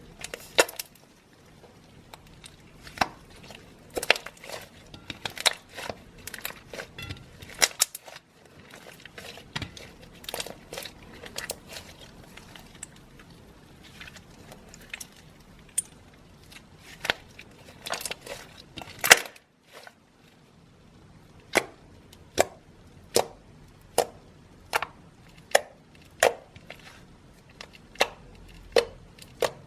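Slime being pressed and stretched by hand, making sharp, wet pops and clicks: irregular at first, then a steady pop about every 0.8 seconds in the last third.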